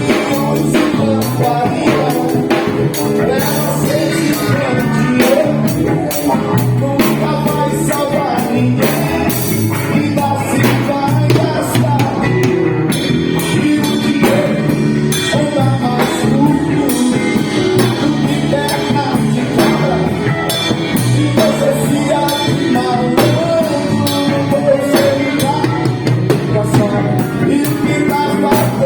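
A band playing a Brazilian baião tune with a rock backing: drum kit, electric guitar, bass and keyboards keep up a steady rhythm.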